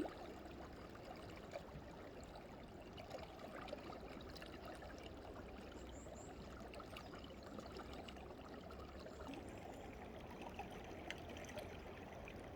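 Faint water trickling and gurgling under the ice of a frozen mountain stream, a steady low sound with scattered small ticks.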